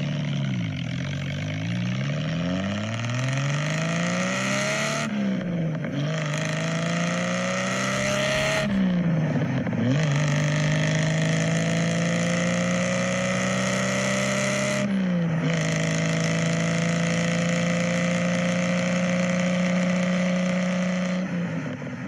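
A car engine revved up and down a few times, then accelerating hard through the gears. Each long rise in pitch breaks at an upshift, about five, nine and fifteen seconds in.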